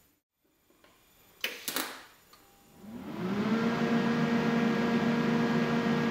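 TIG welding arc on stainless steel tube, struck with the foot pedal after a couple of sharp clicks. It runs as a steady hiss over a low hum that rises briefly in pitch as the arc starts, then holds steady.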